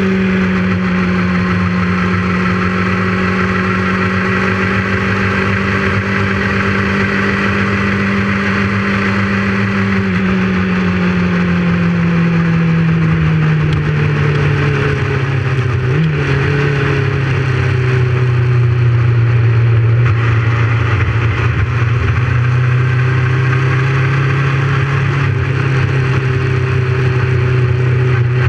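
Motorcycle engine running steadily at speed, with wind and road noise. About halfway through its pitch falls gradually, then holds steady at lower revs.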